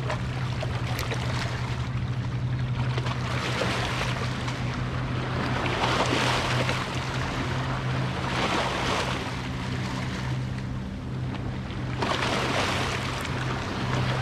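Small waves washing and lapping over a rock wall, the wash swelling every two or three seconds, over a steady low hum.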